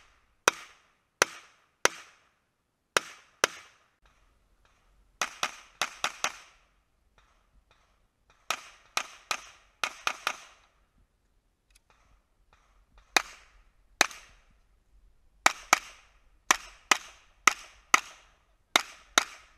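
Pistol shots fired in strings: a few single shots, then quick bursts of several shots about a quarter to half a second apart, with pauses of a second or two between strings.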